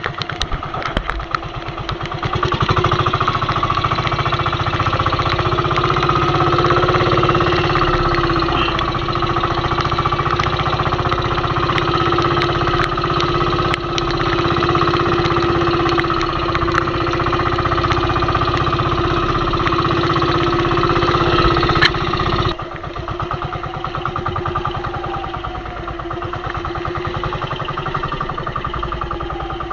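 A small fishing boat's engine running steadily. It gets louder about two seconds in, then drops abruptly to a quieter running about three-quarters of the way through.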